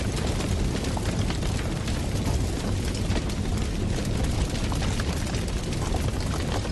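A steady, loud rumbling roar, thick with small crackles and pops.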